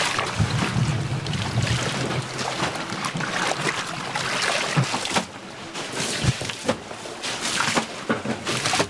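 Water running from a hose into a basin and splashing as napa cabbage halves are rubbed and sloshed in it for washing. About five seconds in the sound drops to a quieter hiss with scattered light patters.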